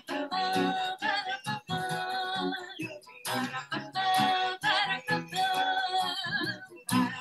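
A song playing: a singing voice over guitar accompaniment.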